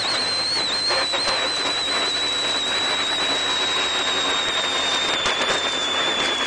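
Inside a Citroën World Rally Car at speed on gravel: a high, thin whine that slowly falls in pitch, over a loud steady hiss of tyre and gravel noise with scattered ticks.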